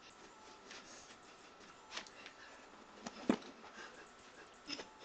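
A few scattered taps and thuds of shoes on a hard floor as a person dances footwork steps, the loudest thud about three seconds in.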